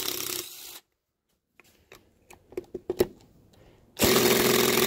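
Cordless impact driver on the Torx bolts of an ATV rear differential case: a short run at the start, then clicks and knocks as the socket is fitted onto a bolt. About four seconds in, the driver starts up loud and keeps running steadily.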